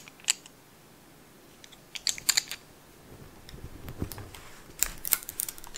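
Handling noise: light clicks and rustles of hands working a plastic hook keeper and elastic band onto a fishing rod, coming in small clusters, with a low rubbing sound around the middle.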